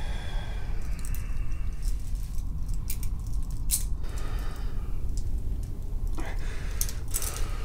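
Steel handcuffs clicking and ratcheting as they are closed around the wrists: a handful of sharp metal clicks, the loudest a little under four seconds in, over a steady low hum.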